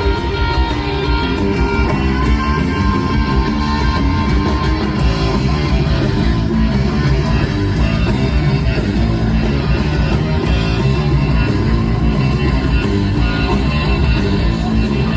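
A rock band playing live: electric guitars, bass and drums, with no vocals heard.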